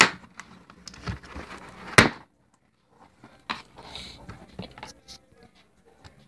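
Cardboard laptop box being opened and its packaging handled: scattered clicks and rustling, with one sharp knock about two seconds in.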